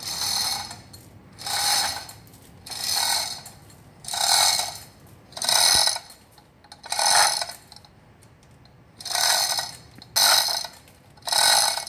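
Half-ton Vital manual chain hoist being worked by hand to lower a truck engine. Each pull of the hand chain gives a clattering rattle of chain links and ratchet clicks, about nine pulls a second or so apart, with a longer pause near the middle.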